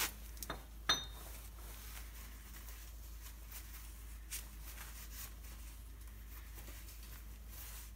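Three light clicks in the first second, the last with a short ring, then a fainter tap about four seconds later, over a steady low hum.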